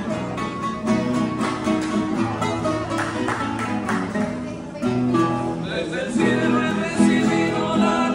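Live trio of acoustic guitars playing a plucked and strummed tune, with a voice singing along from about six seconds in.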